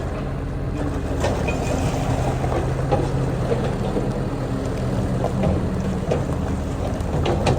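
Engine of a small work machine running steadily, its pitch shifting a little, with a few scattered knocks and clanks.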